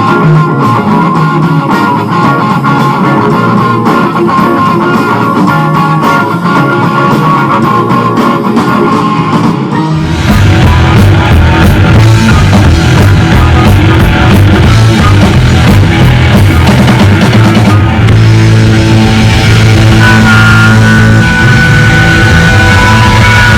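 Instrumental rock music with guitar and drums, which gets fuller and louder about ten seconds in, with a heavier low end.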